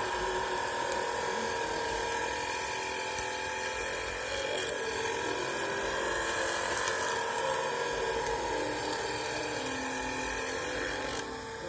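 Electric power tool motor running steadily with a high whine and hiss, used on planer blades. It stops near the end as music comes in.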